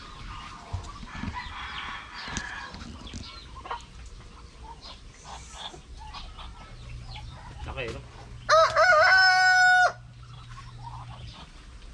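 A rooster crows once, about 8.5 s in: a loud call of about a second and a half, wavering at first, then held on one pitch before cutting off. Softer scattered clucks and calls of the surrounding poultry fill the rest.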